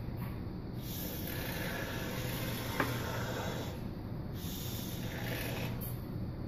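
Can of Great Stuff expanding polyurethane foam hissing as foam is sprayed out through its straw, in two bursts: a longer one from about a second in to about four seconds, then a shorter one. A single sharp click about three seconds in.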